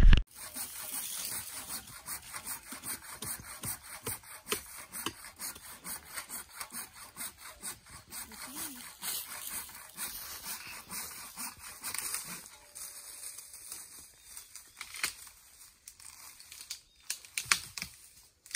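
Hand saw cutting through a dead tree branch, one stroke after another, the strokes coming thick and fast at first and thinning out later on.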